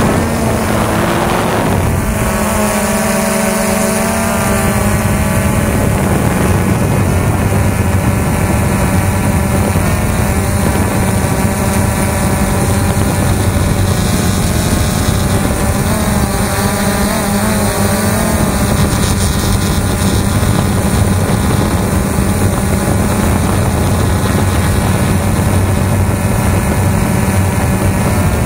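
XK Detect X380 quadcopter's brushless motors and propellers whining steadily, heard from the camera mounted on the drone itself. The pitch of the whine shifts a couple of times as the motors change speed.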